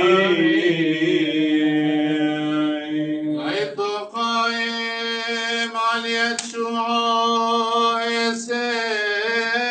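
A man chanting Syriac Orthodox liturgical chant without words breaking in, holding long notes that waver slowly. About four seconds in he steps up to a higher held note.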